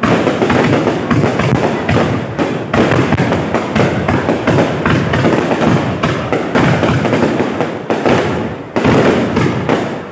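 Fireworks going off in quick succession, a dense run of bangs and crackles with deep thuds, with music underneath.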